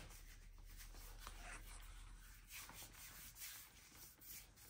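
Faint, irregular rubbing of floury hands being rubbed together to scrape sticky pastry dough off the fingers, with crumbs dropping onto a wooden pastry board.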